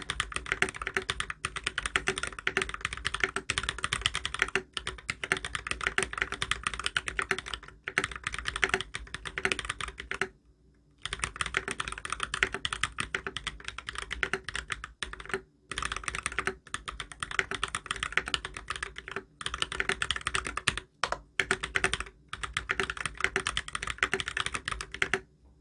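Fast continuous typing on an XO V2 mechanical keyboard with lubed Holy Panda tactile switches on a brass plate and ABS keycaps, a dense run of keystroke clacks with a few short pauses. The typing stops just before the end.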